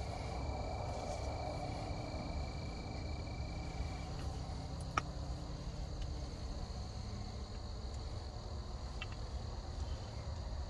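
Insects trilling steadily in a constant high-pitched chorus over a low rumble, with a single sharp click about five seconds in.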